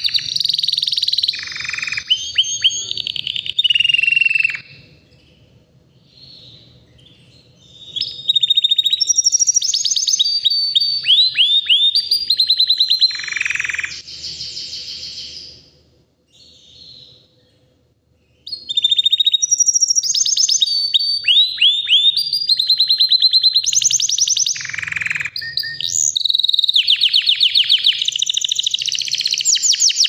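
White domestic canary singing long, loud phrases of rapid trills and quick gliding notes, pausing briefly twice: about five seconds in and again past the middle.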